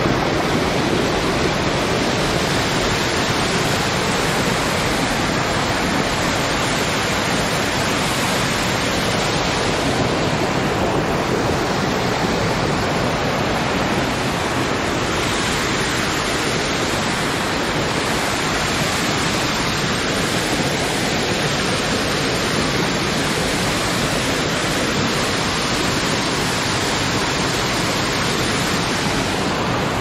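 Waterfall close up, water crashing down over rocks in a loud, steady rush.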